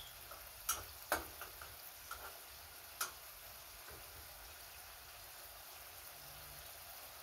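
Light clicks and clinks of a serving utensil against a frying pan and bowl as food is scooped out, several in the first few seconds, over the faint steady sizzle of food frying in the pan.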